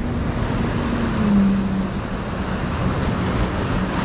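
Ocean surf breaking and washing over the rocks of a jetty, with wind buffeting the microphone. A faint low steady hum runs underneath.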